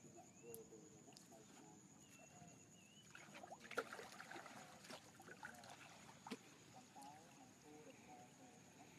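Faint splashes and knocks of hands working in the water at the side of a wooden fishing boat, most of them between about three and seven seconds in, the sharpest just before four seconds.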